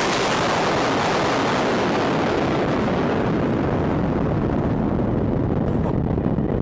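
Continuous rumble of a dynamite blast in a rock tunnel, from a drill-and-blast round of about 150 kg of explosive in some 95 holes, echoing down the bore. The upper hiss slowly dies away while the low rumble holds steady.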